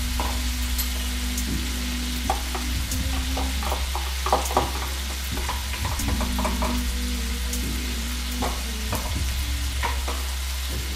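Egg mixture with peppers, jalapeño and kale sizzling in a hot skillet, shrimp frying in a second pan alongside. A few short clicks and taps come in the first half as the last of the egg is scraped and tapped out of a plastic container, over a steady low hum.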